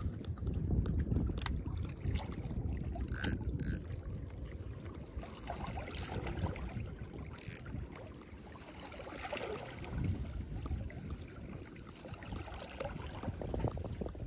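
Low, steady rumble of wind buffeting the microphone at the water's edge, with a few brief faint hissing sounds.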